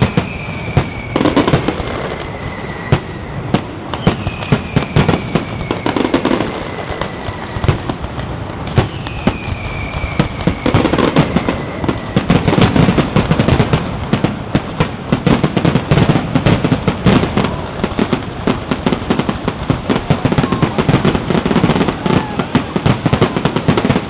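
Fireworks display: a continuous string of bangs and crackles, with three whistles each sliding down in pitch in the first half. From about halfway the bursts come thick and fast in a dense barrage.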